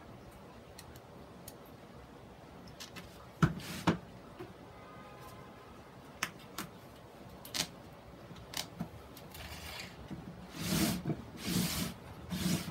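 Handling noises from a plastic grid mounting board and sphagnum moss as fishing line is wound around the moss: scattered clicks and taps, two sharper knocks a few seconds in, and a longer rustling scrape near the end as the board is turned.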